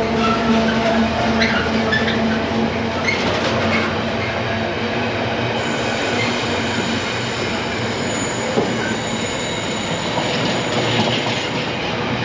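A train passing close by: a steady rush of wheels on the rails with scattered small clicks, and a low hum that fades away over the first few seconds.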